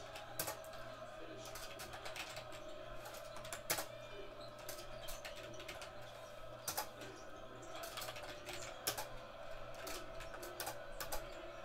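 Typing on a computer keyboard: irregular key clicks, a few sharper than the rest, over a steady hum.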